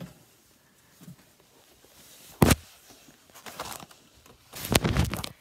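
Handling noise of a phone held against bedding: a sharp bump about two and a half seconds in, some rustling, then a louder burst of fabric rubbing over the microphone near the end.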